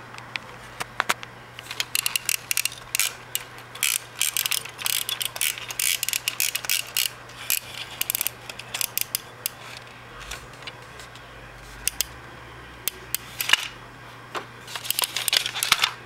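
Rapid plastic clicking and rattling from a 1960 Ideal Astro Base toy scout vehicle's gears and body as it is handled. Dense for several seconds, then sparse, with a few more bursts near the end.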